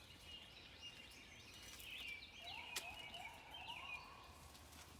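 Faint songbirds chirping, with a chicken giving a drawn-out call of four or five linked notes from about halfway through.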